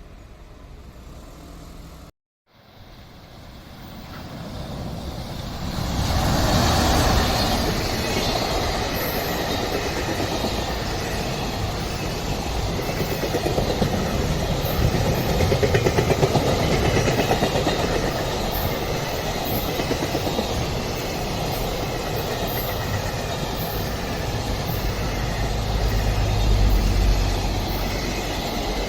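A train passing close by on the tracks, its sound building up over a few seconds and then running loud and steady for about twenty seconds.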